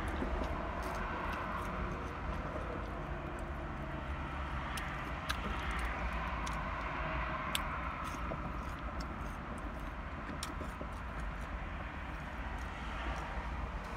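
Steady low rumble inside a car, with scattered sharp clicks as food is handled and eaten.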